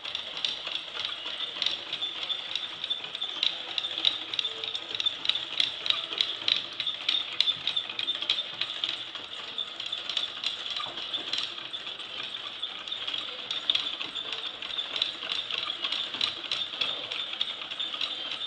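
Wooden gears, cams and levers of a kinetic automaton clicking and rattling as the mechanism runs, in rapid irregular ticks that are densest in the first half.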